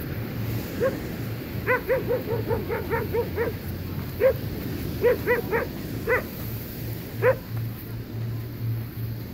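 Dog barking: a quick run of about eight short barks, then scattered single barks.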